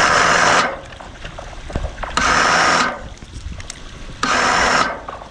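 Electric winch hauling the mainsail up in short runs: a motor hum with rushing noise that stops about half a second in, then runs twice more for under a second each, with quiet pauses between.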